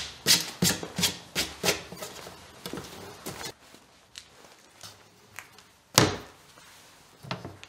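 A plywood box lid on a piano hinge is closed with one loud wooden thunk about six seconds in. Before that comes a run of light, evenly spaced taps, about three a second, that stops after about three and a half seconds.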